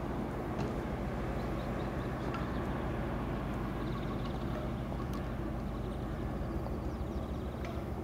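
DR1A diesel multiple unit pulling slowly out of the station, its diesel engine running with a steady low drone.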